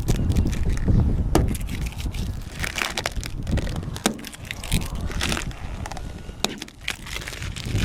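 Vinyl decal stripes being peeled off a car roof, crackling and tearing in irregular bursts with short sharp clicks, over gusty wind rumble on the microphone.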